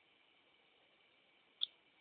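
A hatching baby cockatiel making one short, high-pitched peep or tick about one and a half seconds in, over a faint hiss.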